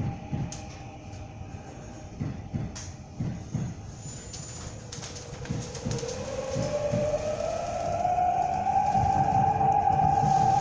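Seoul Subway Line 6 train pulling away from a hold, heard inside the passenger car. Low knocks and rumble come from the running gear early on, then from about halfway the electric traction motor whine rises in pitch and grows louder as the train accelerates.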